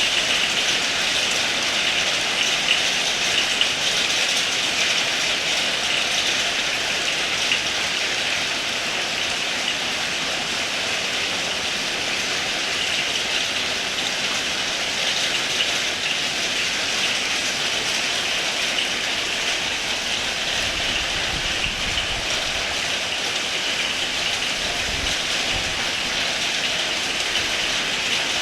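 Heavy rain falling steadily, a dense, even hiss. About two-thirds of the way in, a low rumble joins it underneath.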